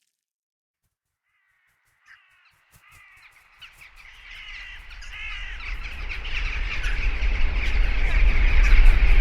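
A flock of crows cawing, many calls overlapping, fading in after about two seconds of silence, with a low rumble swelling underneath toward the end.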